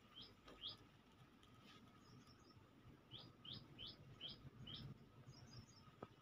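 Faint bird chirps: two short calls near the start, then a run of five quick, evenly spaced chirps a little past halfway, with a soft high twitter in between.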